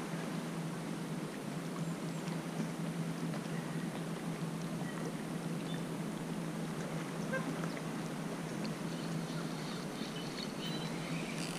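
Steady open-air seashore ambience of wind and shallow water, with a faint steady low hum underneath and a brief hissing burst at the very end.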